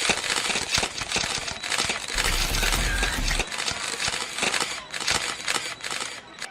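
Many camera shutters clicking rapidly and irregularly, overlapping one another, over a steady background hubbub of a crowd: a press-photographer flurry.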